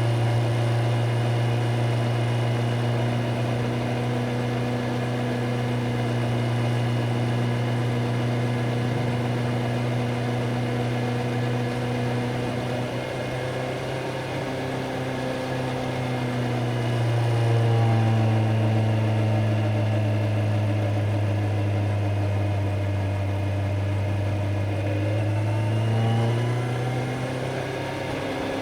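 Kawasaki Z900's inline-four engine running steadily under way. Its pitch shifts smoothly a few times, about halfway through and again near the end, as the revs change.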